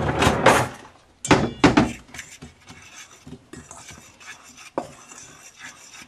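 Flour and salt being mixed by hand in a stainless steel mixing bowl, with two louder bursts of metal bowl clatter in the first two seconds, then steady softer scraping and rustling of the dry flour against the bowl.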